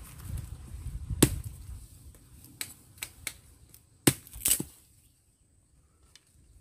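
Dry sticks and twigs cracking and snapping by hand, with rustling of dry leaf litter; about six sharp snaps, the loudest a little over a second in and about four seconds in, after which it goes quiet.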